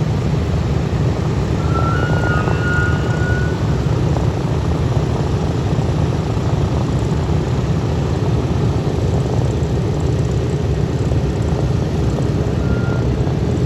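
Radial piston engines of a B-17G Flying Fortress, four Wright R-1820 Cyclones, running steadily with a deep even rumble.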